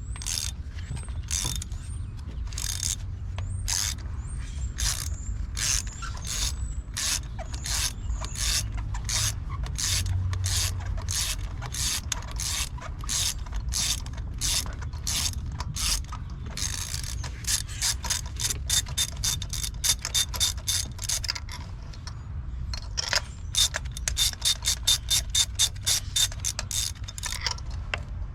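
Socket ratchet clicking as a spark plug is loosened by hand. Steady clicks about twice a second at first, then quicker runs of clicking in the second half.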